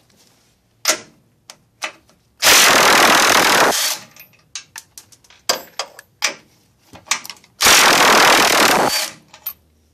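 Cordless impact gun spinning off the two 16 mm cab-mount nuts: two loud rattling bursts of hammering, each about a second and a half long and about five seconds apart, with small clicks of the socket and nuts in between.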